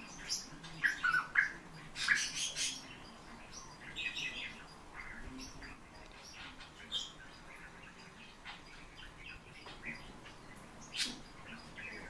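Fieldfare calling in several short bursts of chirps, the loudest in the first three seconds, with a few single calls later.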